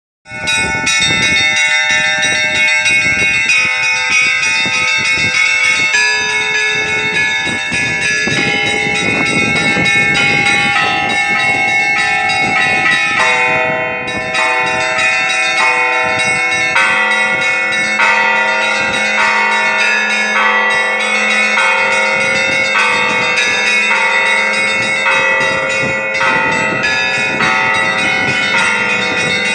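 Church bells ringing for Easter: many bells struck in quick, overlapping succession, with a deeper bell sounding steadily from about 17 seconds in.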